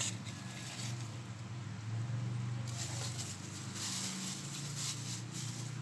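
Wet squelching and light patter of hands handling raw liver in a wok in a steel sink, over a steady low hum.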